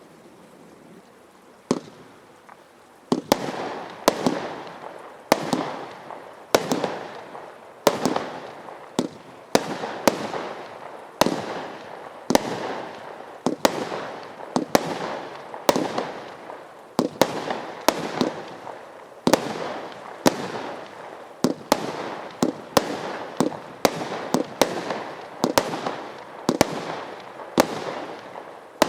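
Consumer firework barrage cakes firing shot after shot, roughly one or two sharp bangs a second, each trailing off in a fading rush of noise. A single bang comes about two seconds in, and the steady run of shots starts a second later.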